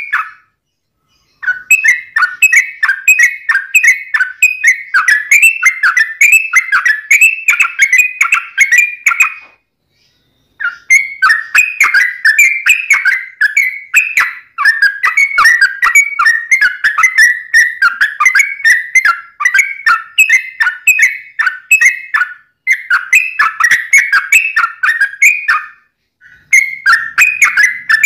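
Yellow-vented bulbul (trucuk) singing a long, rapid run of short chattering whistled notes. Each run lasts several seconds, with brief pauses between runs.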